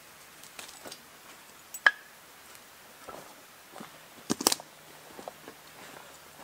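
Firewood being split and stacked: scattered wooden knocks and clacks, with a single sharp strike about two seconds in and a quick cluster of knocks past the middle as split logs knock together.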